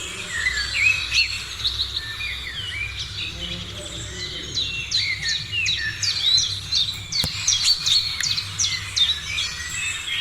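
Many birds chirping and calling over one another in a morning chorus of short, quick notes, busier in the second half. A single sharp click sounds about seven seconds in.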